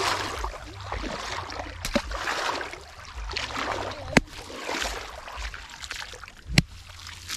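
Water splashing and trickling in uneven bursts as a fishing net is worked through shallow pond water, with a few sharp knocks.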